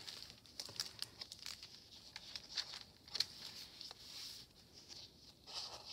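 Faint paper rustling with scattered soft clicks as the thick, collaged pages of a handmade junk journal are handled and turned.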